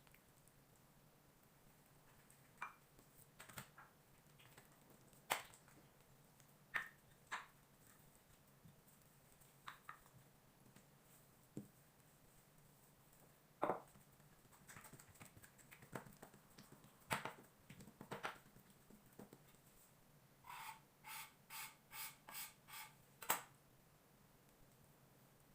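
Faint, scattered clicks and taps of hands and kitchen utensils handling oiled paratha dough on a work surface, ending in a quick run of about six taps.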